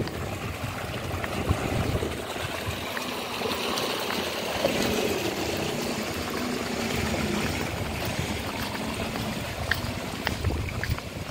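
Water running and trickling in a narrow stone channel beside a path, a steady rushing, with an uneven low rumble underneath.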